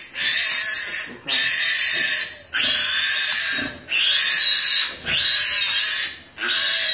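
Newborn piglet screaming in a run of loud, high-pitched squeals, about one a second, as it is held up and restrained to have its needle (canine) teeth clipped.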